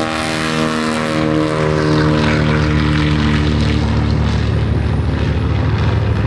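Grumman Avenger's Wright R-2600 Twin Cyclone radial engine running steadily on the ground, a low even drone whose higher tones fade after about four seconds.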